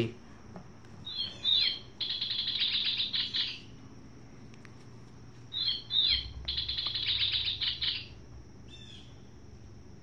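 Recorded American robin call played from the sound box of a 2000-era Wild Republic Audubon plush robin. It plays twice, each time a couple of short sharp notes followed by a fast chattering run, with one brief note near the end.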